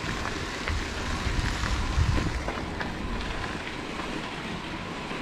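Wind buffeting the microphone over the rolling of a mountain bike's knobby tyres on a dirt fire road, with a few faint clicks and rattles.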